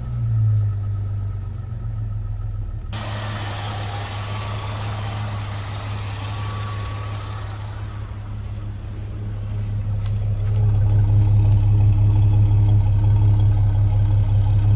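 Jeep Grand Cherokee's 4.0-litre straight-six engine running steadily, mostly at idle. It grows louder about ten seconds in and then holds at the higher level.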